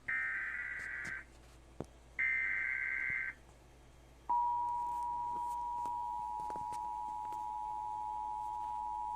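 Emergency Alert System SAME header: two bursts of buzzy digital data tones, each about a second long with a second's gap between them. About four seconds in, the EAS two-tone attention signal (853 and 960 Hz played together) starts and holds steady.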